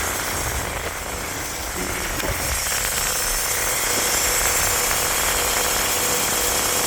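Car engine idling steadily after a water pump swap, with timing set right, and a faint steady whine through much of it.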